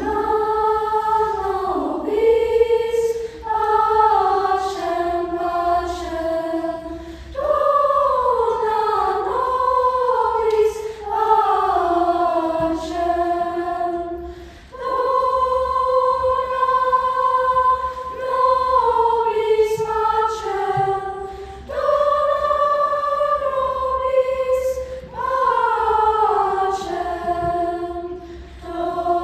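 Youth choir of mostly girls' voices singing in phrases of a few seconds each, the melody falling toward the end of most phrases, with short breaks between.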